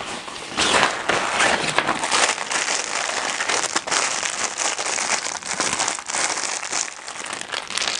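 Clear plastic packaging bag around a softbox diffuser cloth crinkling and rustling continuously as it is handled and turned over in the hands.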